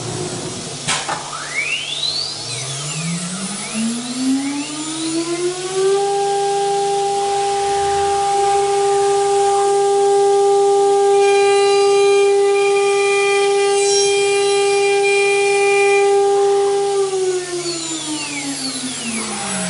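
CNC router's electric spindle motor spinning up with a rising whine, running at full speed as a steady high whine for about eleven seconds, then spinning down with falling pitch near the end. A single click comes about a second in.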